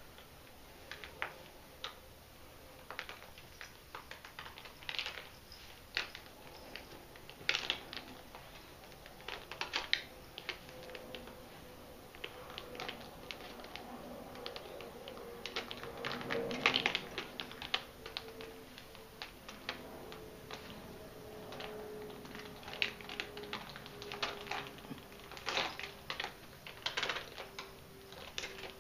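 A cat's claws clicking and scraping irregularly on an umbrella as it shifts its footing, with a louder scrabble about sixteen seconds in.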